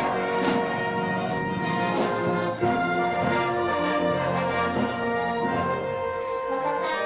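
Brass band playing: sustained brass chords that change every second or so, with light percussion strokes.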